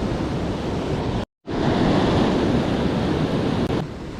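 Ocean surf with wind buffeting the microphone, a steady rushing noise. It cuts out completely for a moment about a second in, then comes back louder, and drops again near the end.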